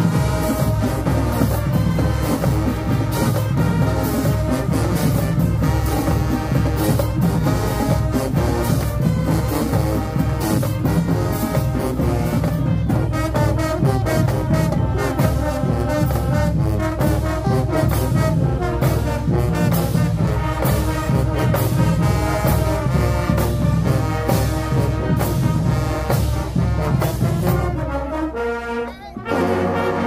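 High school marching band playing: loud brass (trombones and trumpets) over driving drums. The music breaks off briefly near the end, then starts again.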